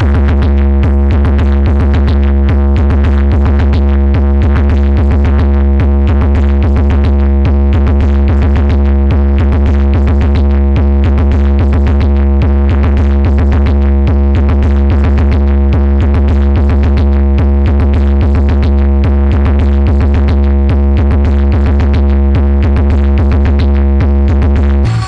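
Loud electronic music played through a DJ loudspeaker rig of four bass and four mid-range cabinets: one deep bass note held steady under a fast, even drum-machine beat, changing abruptly near the end.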